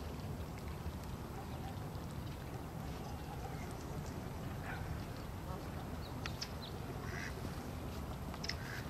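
Mallards quacking a few times, short separate calls in the second half, over a steady low background rumble.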